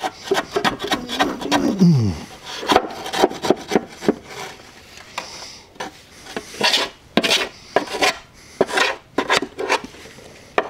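A metal bar chipping and scraping rock-hard dried dirt off the underside of a Cub Cadet XT1 42-inch steel mower deck: irregular scrapes and sharp knocks, with a drawn-out falling tone in the first two seconds.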